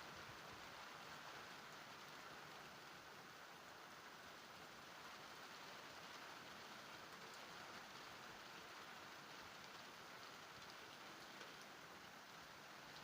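Faint, steady rain falling, an even hiss with no thunder.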